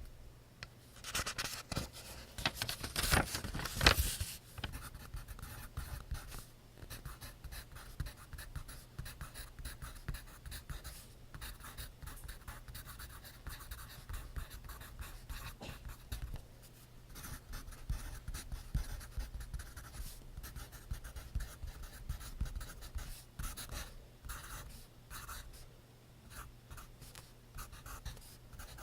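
Pencil writing on paper in continuous quick, scratchy strokes, louder and denser in the first few seconds and ending that stretch with a sharp tap about four seconds in.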